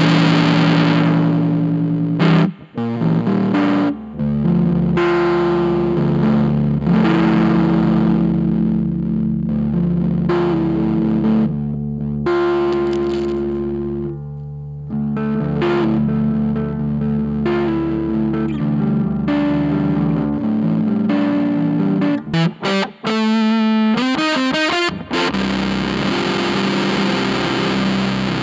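Electric guitar played through a Gone Fishing Effects Rage of the Tsar germanium fuzz pedal: thick, distorted sustained chords and riffs. The notes cut off abruptly twice in the first few seconds, and a little past twenty-two seconds the playing turns into a run of quick, choppy stops before the held chords return.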